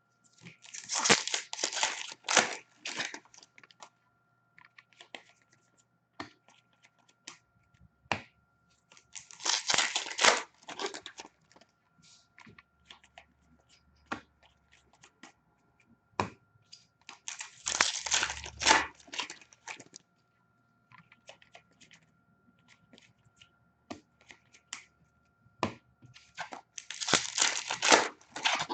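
Hockey card packs being torn open: wrappers crinkling and tearing in four bursts about eight to nine seconds apart, with light clicks and taps between.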